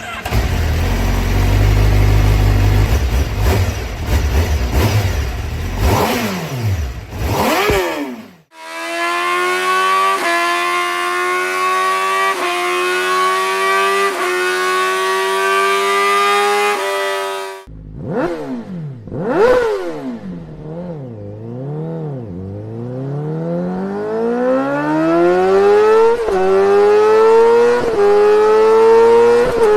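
Honda CBR1000RR-R Fireblade SP inline-four engine. It first runs with a rough, low burble and quick blips of the throttle. Then it accelerates hard, the note climbing and dipping at each upshift every couple of seconds. After two more sharp revs it climbs through the gears again.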